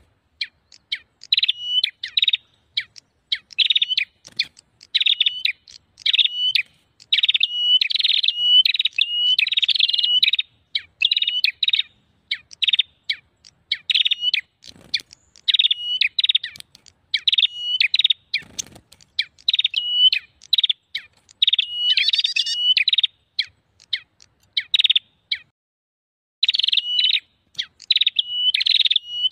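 Prenjak (small prinia-type warblers) calling in fast, busy bouts of sharp, chattering notes, repeated over and over with only brief pauses, played as a trapping lure call.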